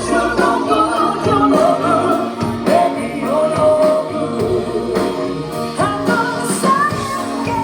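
Live band playing a rock song with a singer's voice over it.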